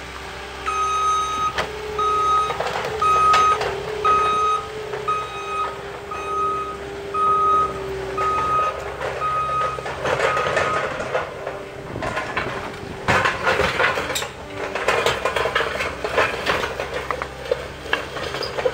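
Compact track loader with its engine running and its backup alarm beeping about once a second for roughly ten seconds while it reverses. The beeping then stops and loose brick pavers clatter and knock as the loader scoops and dumps them.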